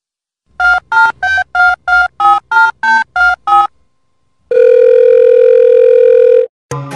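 Telephone keypad tones: about ten short two-note beeps, about three a second, dialing a number. After a short pause comes one steady tone of about two seconds, the ringback of the call going through.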